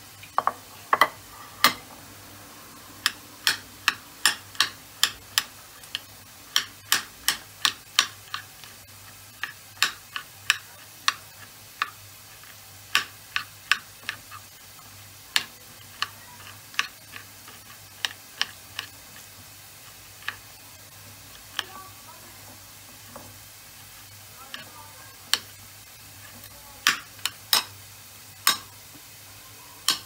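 Metal spoon clinking against a ceramic plate while chopping up soft roasted eggplant flesh: sharp, irregular clicks, one or two a second, with a few short pauses.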